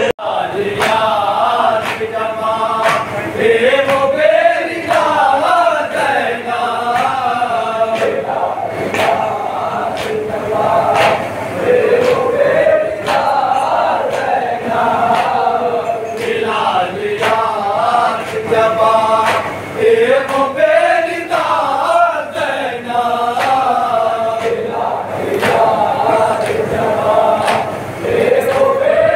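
A group of men chanting a nauha (Shia lament) in unison, the melody rising and falling in repeated phrases. Sharp strikes keep a steady beat under the chant, typical of matam (mourners striking their chests).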